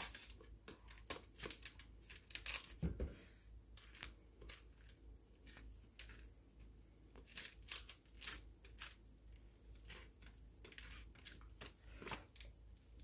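A metal spoon spreading butter across dry toast: a run of short, irregular scratchy scrapes over the bread.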